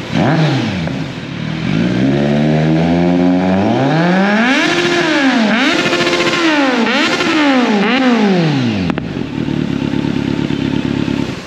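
A 2023 Kawasaki Z900's 948 cc inline-four, through an Akrapovic slip-on exhaust, being revved while standing: a long climb in revs, then several quick throttle blips rising and falling, dropping back to a steady idle near the end.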